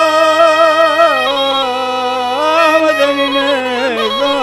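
A man singing a slow, heavily ornamented line stretched over long melismas, accompanied by a Thracian gaida (goatskin bagpipe) with its steady drone beneath.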